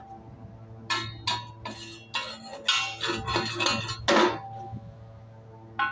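Steel welding plates clinking and knocking against each other and the metal work surface as they are handled and repositioned, a string of sharp metallic knocks with short ringing over a steady low hum.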